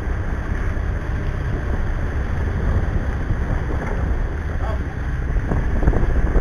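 Steady low rumble of a Cabo 40 sportfishing boat's diesel engines under way, with water rushing along the hull and wind buffeting the microphone.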